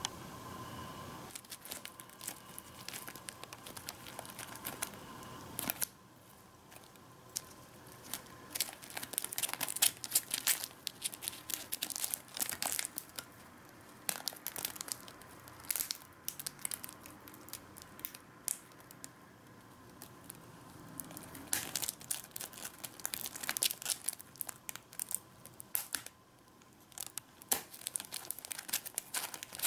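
Irregular dry scratching, crackling and clicking from a Dorcus titanus typhon stag beetle and a Hercules beetle grappling on a bark-covered log, their claws scraping and catching on the bark. The sounds come in flurries.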